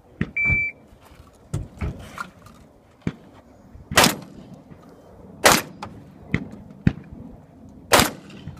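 Shot timer's start beep, then three shotgun shots: the first about four seconds in, the next a second and a half later, the last two and a half seconds after that. Smaller clicks and knocks of the gun being handled fall between the shots.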